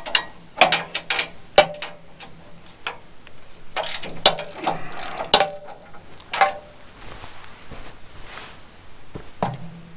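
Hand ratchet clicking as bolts are tightened on the steel track sections of a sawmill bed, with sharp metallic clanks that ring briefly. A run of fast ratchet clicks comes about four to five seconds in.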